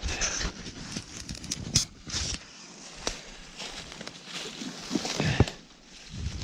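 Footsteps and rustling through dry leaves and brush on the forest floor, with a few sharp cracks or knocks in between.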